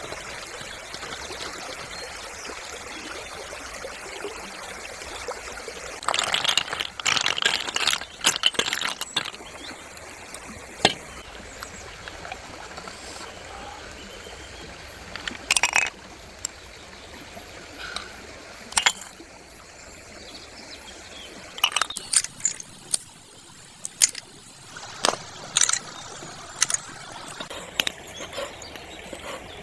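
A steady watery hiss runs under sharp clicks and knocks: snail shells being handled, with the snail meat being pulled out, then a cleaver chopping snail meat on a wooden board in a run of strokes near the end.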